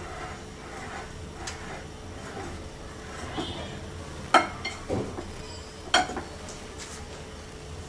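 Wire whisk stirring dry flour in a glass bowl: a soft, steady scraping rustle, with a few sharp clinks of the whisk striking the glass in the second half.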